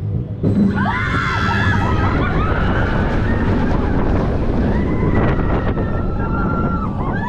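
Spinning roller coaster car suddenly picking up speed about half a second in, with a loud rush of wind and rumbling track noise, and riders screaming over it.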